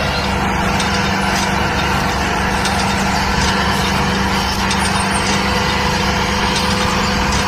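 Steady engine running sound of a mini tractor pulling a cultivator through soil: an even drone with a constant hum under it, unchanging in pitch.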